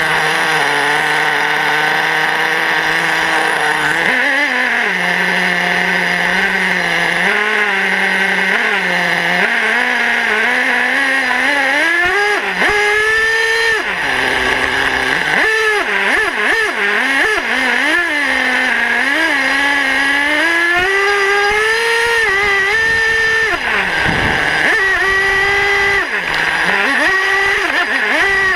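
Radio-controlled truck's motor heard from on board. It holds a steady pitch for about the first four seconds, then revs up and down again and again as the truck drives.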